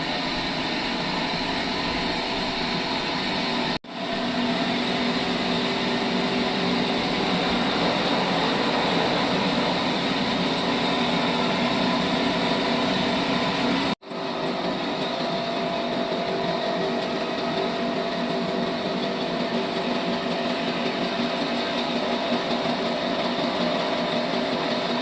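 Sawmill trolley machine running steadily as it saws a mulberry log: a continuous mechanical din with a steady hum underneath. The sound cuts out abruptly for an instant twice, about four seconds in and again about fourteen seconds in, then picks straight back up.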